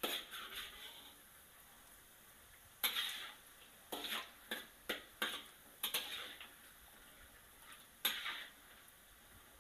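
A spatula scraping and knocking against a wok as battered pork belly pieces are stirred in hot oil: irregular scrapes, one at the start, a cluster in the middle and one more near the end. A faint frying hiss lies beneath.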